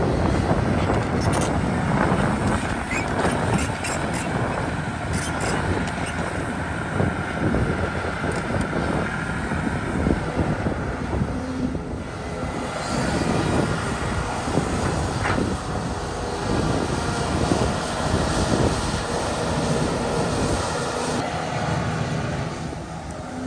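Volvo excavator's diesel engine running steadily under working load, with scattered knocks and clatter throughout.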